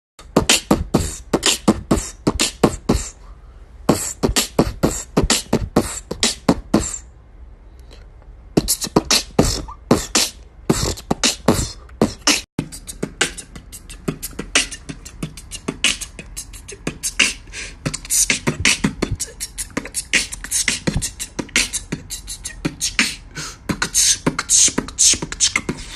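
Beatboxing: a person making fast vocal drum sounds, low kick-like thumps and hissing hi-hat clicks in a steady rhythm. The beat breaks off briefly about three seconds in and again from about seven to eight and a half seconds.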